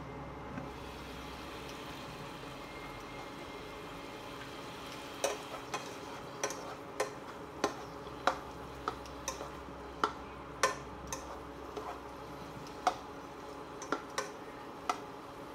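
Meat strips and onion frying in a nonstick pan with a steady low sizzle. From about five seconds in, a silicone spatula stirs them, knocking and scraping against the pan about twice a second at an uneven pace.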